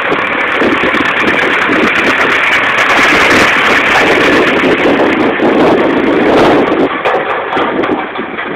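Tractor engine running close by, a loud, steady mechanical noise that drops a little after about seven seconds.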